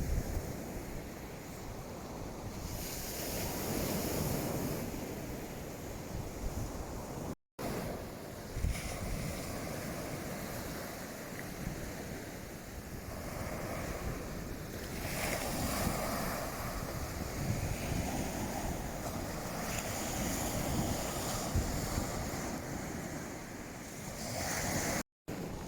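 Waves washing onto the beach with wind buffeting the microphone, a steady rushing noise that swells and eases. The sound cuts out briefly twice.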